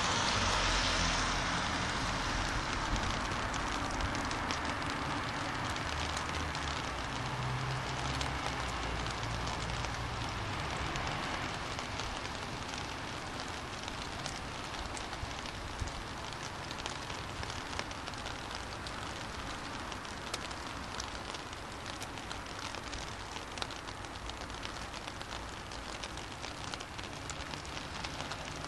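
Steady rain falling on a wet city street, with a vehicle's tyres hissing on the wet asphalt and a low rumble that fade away over the first ten seconds or so. After that the rain hiss goes on evenly, with individual drops ticking close by.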